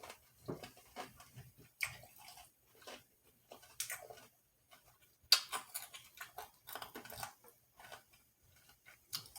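Scattered light clicks and knocks from tableware and food being handled, with a busy cluster of sharp clicks about five seconds in.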